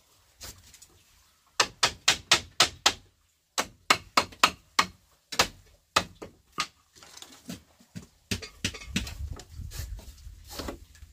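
A run of sharp knocks, like hard strikes of a tool: a quick burst of about seven about a second and a half in, then slower, spaced strikes, with a low rumble under the last few near the end.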